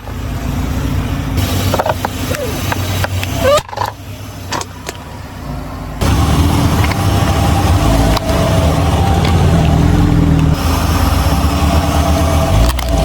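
Car engine running steadily at low speed, in several abruptly joined stretches, with a few short clicks and squeaks early on.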